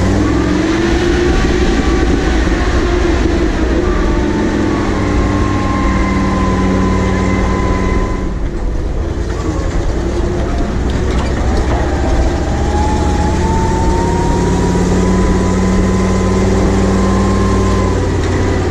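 Ural military truck driving at speed on a sandy track: a steady engine and drivetrain drone with a whining tone over it. The whine fades about eight seconds in, then comes back and rises slowly in pitch.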